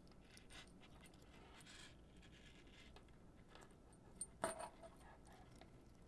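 Near silence with faint handling sounds of a small metal connector backshell and its parts, and a brief cluster of light clicks about four and a half seconds in.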